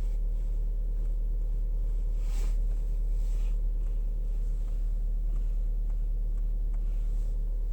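Skoda Rapid's steering rack knocking in a series of faint, irregular knocks as the steering wheel is turned, over the steady low hum of the running car.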